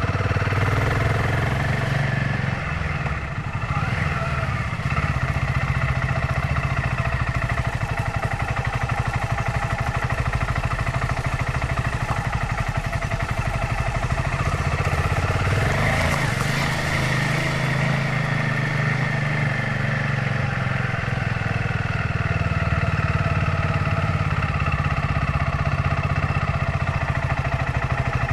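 Royal Enfield Himalayan 450's single-cylinder engine running steadily on the road, with wind and road noise; the engine note shifts briefly a little past halfway.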